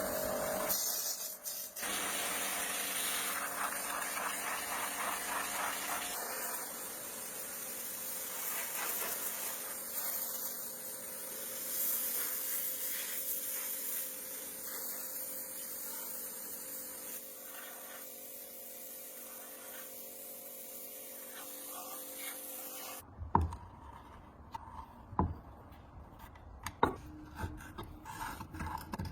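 Steady abrasive rubbing and scraping over a steady hum, typical of sanding or scrubbing during a restoration, which stops about 23 seconds in. A run of light knocks and clinks follows.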